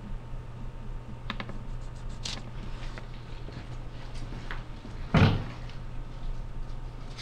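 A single dull thump about five seconds in, over a steady low hum, with a few faint light clicks earlier.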